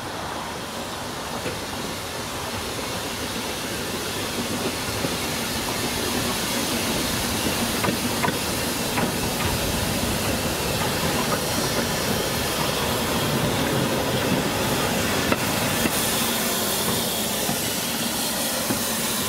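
Narrow-gauge steam locomotive, Ffestiniog Railway No 4 Palmerston, running with its train and hissing steam, growing louder as it approaches, with occasional clicks of wheels over the rails.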